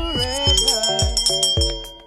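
Background music with a steady beat, a low thump about twice a second, under held notes and a high sustained tone; it fades down near the end.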